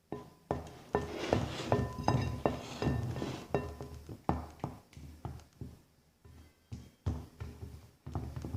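A utensil repeatedly knocking and clinking against a bowl while a glue mixture is stirred, in short, uneven strokes with brief ringing tones.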